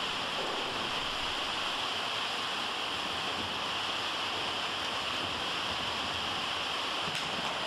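Torrential rain on the roof of an indoor riding arena, heard from inside as a steady, even hiss.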